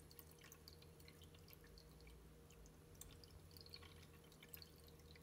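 Near silence: faint room tone with a low steady hum and a few very faint ticks.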